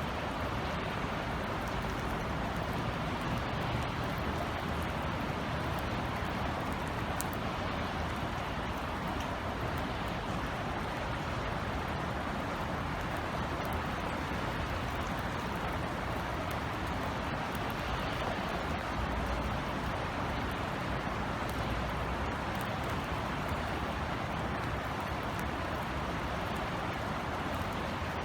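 Steady rain falling as an even, unbroken hiss, with faint scattered drip ticks and a low rumble of city traffic beneath.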